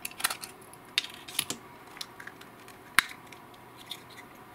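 Small flathead screwdriver prying apart the snap-together plastic case of a USB wall charger: scattered light clicks and scrapes of plastic, with one sharp click about three seconds in.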